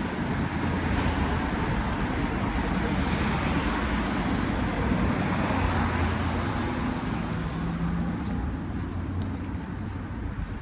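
Road traffic: vehicles passing along a street, a continuous wash of tyre and engine noise with a low engine hum, easing off a little toward the end.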